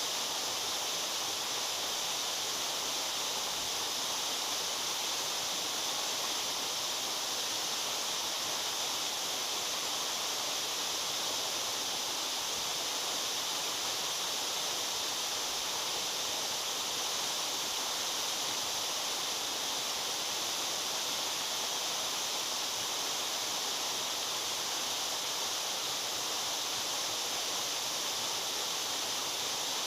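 Waterfall: water falling and splashing in a steady, unbroken rush, strongest in the hiss range.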